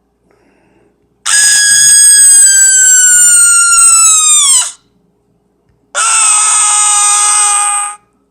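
Two long, shrill screams from a Halloween scary-sound effect. The first lasts about three seconds, sagging slowly in pitch and dropping away at the end. After a short gap a second, lower scream holds steady for about two seconds.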